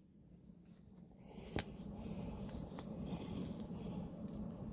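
Faint rustling and shuffling from someone moving right by the phone, with a light click about one and a half seconds in.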